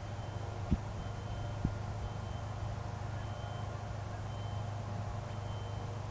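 Light aircraft's piston engine running steadily at low power, a low even hum. A faint high beep comes about once a second, and there are two short knocks early on.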